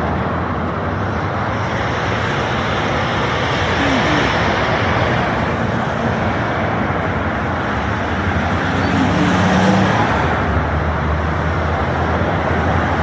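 City street ambience: a steady wash of road traffic, with a vehicle passing a little louder about nine to ten seconds in.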